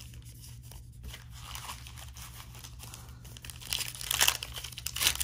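Foil wrapper of a Panini trading card pack being torn open and crinkled by hand. It starts as faint rustling, then turns to loud, irregular crackling from about three and a half seconds in.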